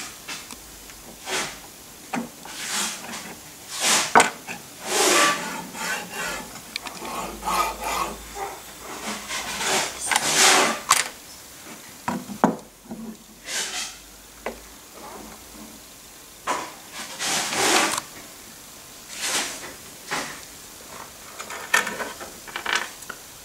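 HGH15 linear guide carriages being slid onto their steel rails and the C-Beam assembly moved about on a wooden workbench: a series of metal sliding scrapes, clicks and knocks.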